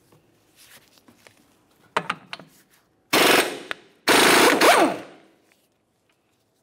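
Impact wrench hammering on the 32mm front axle nut of a Honda Civic: a few light clicks, then two loud bursts of rapid hammering of about a second each, loosening the nut and running it off the axle.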